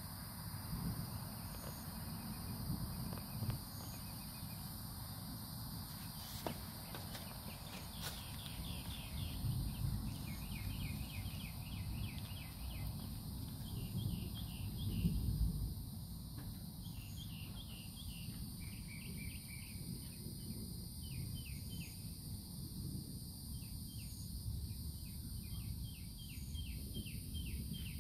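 Insects, crickets among them, trilling steadily in high tones, joined from about a third of the way in by runs of short rapid chirps. Under them runs a constant low rumble that swells once a little past the middle.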